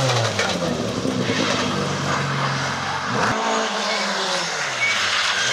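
Mk2 Ford Escort rally car sliding sideways through a wet hairpin, its engine revving high and falling in pitch in the first second. About three seconds in the sound cuts abruptly to a Toyota Corolla rally car approaching on the wet road, its engine rising in pitch.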